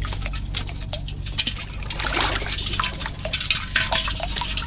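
Shallow water splashing and trickling, with many short, sharp splashes and knocks close by. A thin, steady, high-pitched whine runs underneath.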